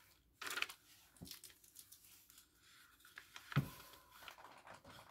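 Rustling and clatter of flat-pack furniture parts and packaging being handled, with a short burst of rustling about half a second in and a dull knock about three and a half seconds in.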